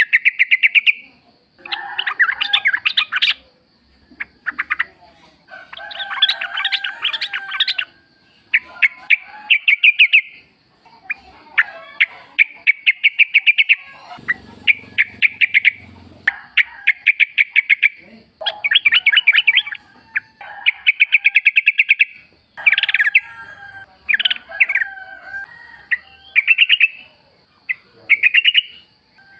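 Yellow-vented bulbuls singing, a run of short phrases of rapid, bubbly chattering notes one after another. A faint steady high tone runs underneath.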